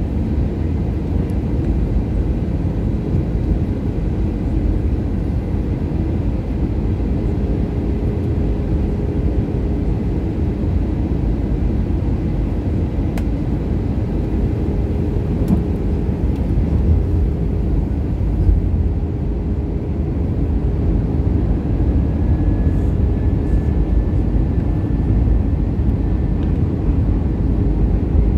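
Steady cabin noise of an Airbus A320ceo on approach, heard inside the cabin beside the engine: a deep, even rumble of engine and rushing air, with a faint thin high whine for a few seconds near the end.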